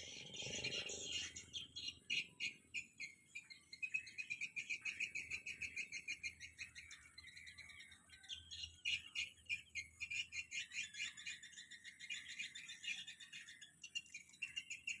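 Birds chirping and twittering in busy, rapid runs of high notes, with no pause.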